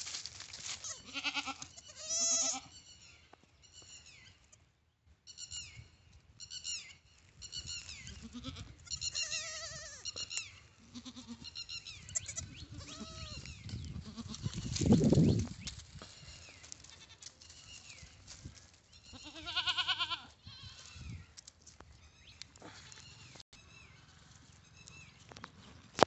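Goat kids bleating: many short, quavering calls, some high and some lower, coming thick in the first half and again about twenty seconds in. About halfway through, a brief low rumble is the loudest sound.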